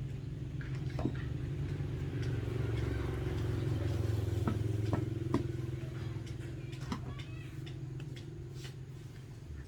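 An engine running steadily with a low hum; it grows louder a few seconds in and then eases off. Scattered clicks and knocks sound over it.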